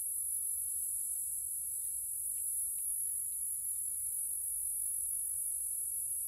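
Steady high-pitched insect chorus that does not vary, with a few faint ticks.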